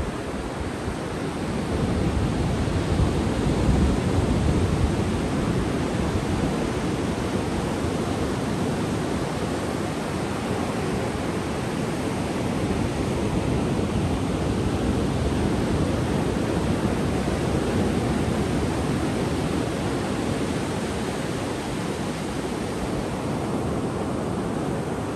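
Ocean surf breaking and washing up a sandy beach: a steady, full roar of waves that swells louder about two seconds in, then rolls on evenly.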